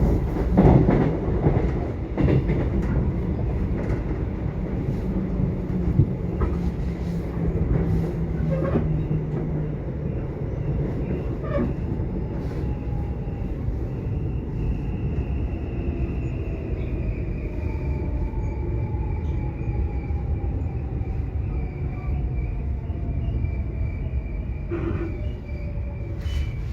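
Subway train running on the rails: a continuous rumble with scattered clicks and knocks. In the second half, thin high whines slowly fall in pitch.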